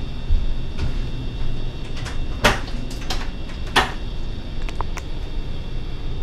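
A tall wooden cabinet door being unlatched and swung open, giving a handful of sharp clicks and knocks, the loudest about two and a half and nearly four seconds in, over a steady low background hum.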